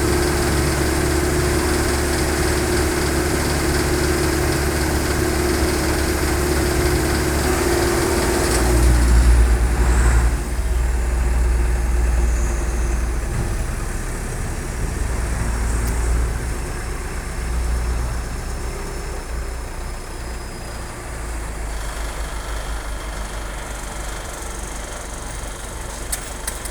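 Heavy diesel engine running steadily, then dropping in pitch about nine seconds in as it is throttled back. It carries on at a lower idle while a faint high whine slowly falls away.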